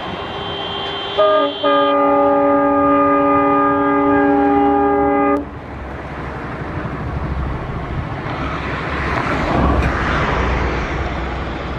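Indian Railways diesel locomotive horn: a short toot about a second in, then one long blast of about four seconds that cuts off sharply. Afterwards the train's coaches rumble along the track, swelling and easing off near the end.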